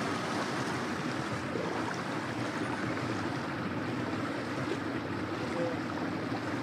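Motorboat under way: a steady engine hum under the rush of water along the hull.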